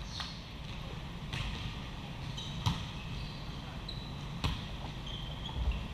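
Volleyballs being hit and bouncing in a large gym: four sharp impacts about one to two seconds apart, with a few short, high sneaker squeaks on the court surface in between.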